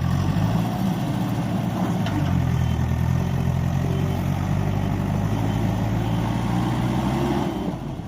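Heavy diesel engine of earth-moving machinery running steadily at a low, even note.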